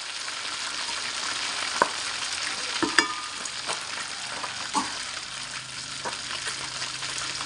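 Whole red tilapia deep-frying in a pot of hot oil, already golden and nearly done: a steady sizzle with a few sharp pops of spattering oil, the loudest about three seconds in.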